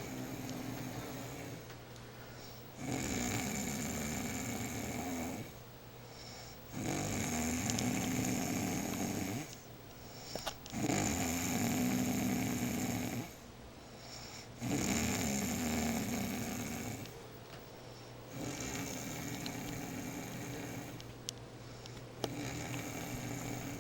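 A sleeping woman snoring loudly and rhythmically: about six long snores, one every four seconds or so, each lasting about two and a half seconds.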